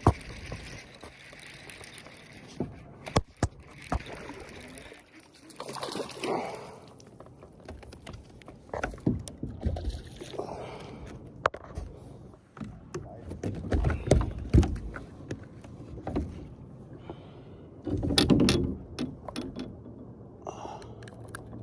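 Kayak paddle strokes, a watery swish every few seconds, with sharp knocks and bumps against the kayak as the paddler moves.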